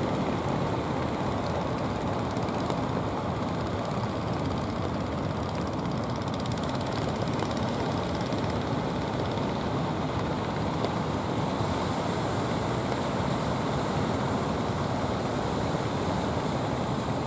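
Steady rushing noise of wind and sea waves in rain, with no distinct engine note; the higher hiss grows a little stronger about two-thirds of the way through.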